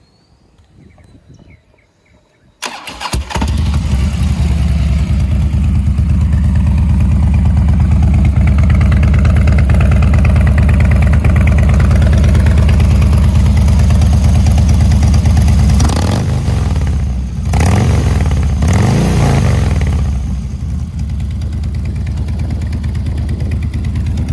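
2011 Harley-Davidson Street Bob FXDB's air-cooled V-twin, breathing through a Lowbrow 2-into-1 exhaust, starts after a brief crank about two and a half seconds in and settles into a loud, steady idle. A little past the middle it is revved up and down three times with quick throttle blips, then drops back to idle.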